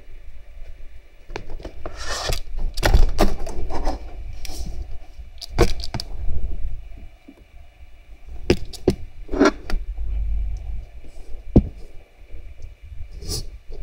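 Towels and bedding rustling, with scattered sharp clicks and knocks, as a hand settles a kitten into its bed.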